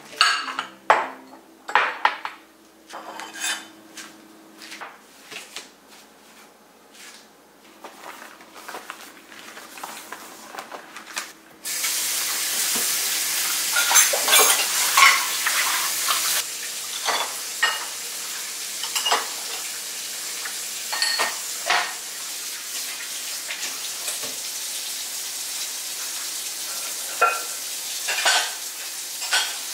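Plates and cutlery clinking and scraping as dishes are handled at a kitchen sink. About twelve seconds in, the faucet is turned on and water runs steadily while dishes are rinsed, with more clinks over it.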